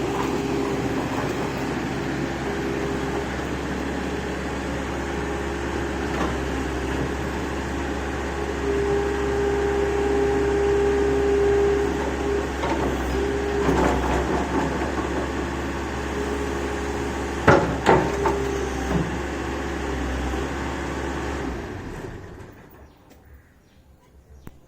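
Excavator's diesel engine running steadily, with a few sharp metal clanks late on; the sound drops away near the end.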